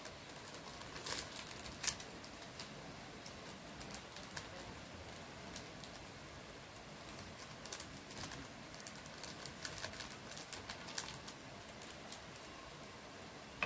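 Small plastic seasoning sachets crinkling and ticking as they are torn open and shaken out over a plate of noodles, in faint, irregular little clicks and rustles.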